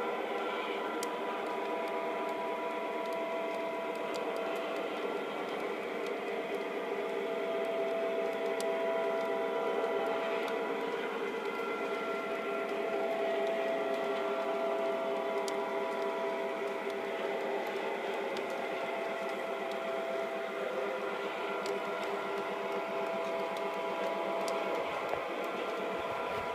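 O-gauge model train running past, its heavyweight passenger cars rolling on the track with a steady mechanical whir. Faint clicks come now and then.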